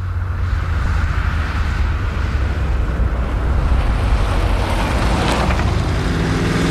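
1963 Corvette Sting Ray's V8 engine running as the car drives by on a road: a low rumble with tyre and wind noise. The car passes close about five seconds in.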